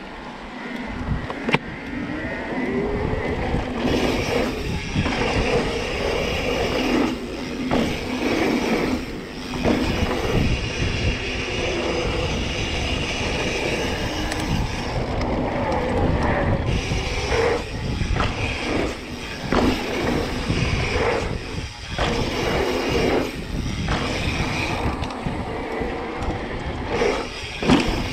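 Mountain bike being ridden along a dirt trail: a continuous rumble of tyres over the ground and rattle of the bike, mixed with wind on the microphone, easing briefly every few seconds.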